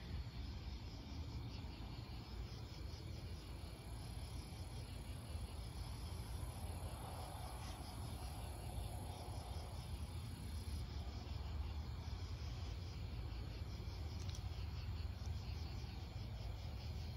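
Night insects, crickets, chirping in a steady pulsing chorus over a low, steady rumble.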